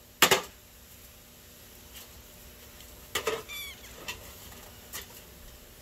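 An axe blow strikes the sheet-metal body of a bread maker with one sharp, loud crack just after the start. About three seconds in come a few lighter knocks and rattles as the wrecked machine is handled, then a brief high chirping squeak.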